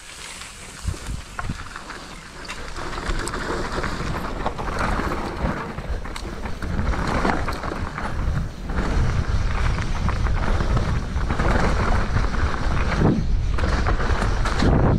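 Wind buffeting and rumbling on the microphone while riding, growing much louder from about two seconds in as the pace picks up, with rough gusty surges.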